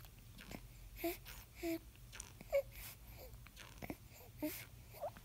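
A three-month-old baby feeding hungrily from a bottle: faint sucking and swallowing clicks with short little squeaks and grunts every second or so.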